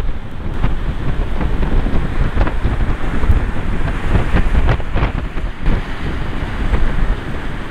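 Storm-force norte wind buffeting the microphone in a heavy low rumble, with irregular sharper pops, over the wash of rough sea and breaking surf.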